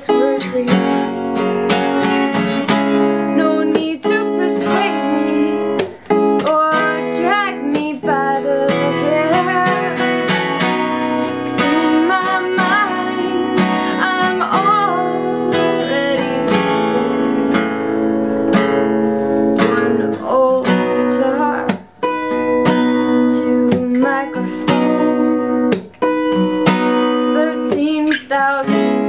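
Strummed steel-string acoustic guitar, a Guild, with a woman singing over it.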